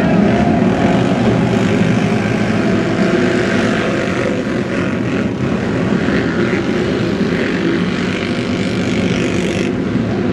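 Many ATV race engines running at once, a field of racing quads revving and pulling away from a cross-country start line in a dense, steady din.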